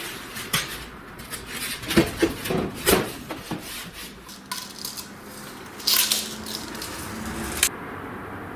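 Irregular knocks, clicks and scrapes from fitting foam insulation board in a small room, with the loudest knocks about two and three seconds in, a short scraping rush about six seconds in, and a sharp click near the end.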